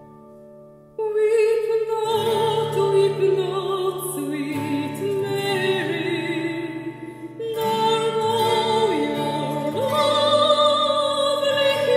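Operatic singing with vibrato over classical-style accompaniment, played back through a car's audio system. It starts about a second in.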